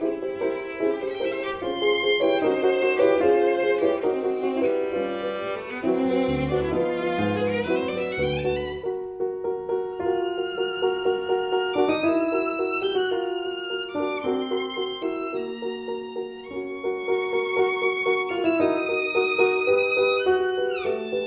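Instrumental music: a melody of quickly changing notes over accompaniment, with a run of low bass notes about six seconds in.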